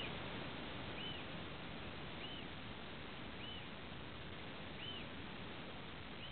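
Steady rushing of a river heard from above in the forest. Over it, a short high chirp that rises then falls repeats about every second and a bit.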